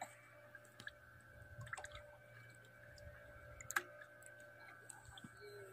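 Faint water lapping and dripping against a small boat's hull, with a few light clicks, the sharpest a little under four seconds in, over a low steady hum.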